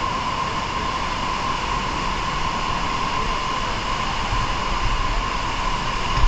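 Steady rush of flowing water inside a cave, a constant even noise without breaks.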